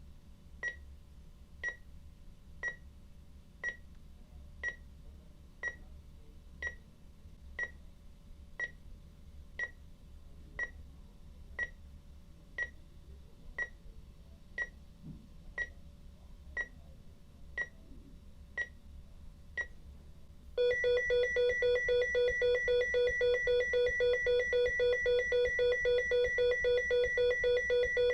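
Medical EKG heart monitor beeping once per heartbeat, about one short beep a second. About twenty seconds in, the beeps give way to a louder, continuous flatline tone, the monitor's signal that no heartbeat is being detected.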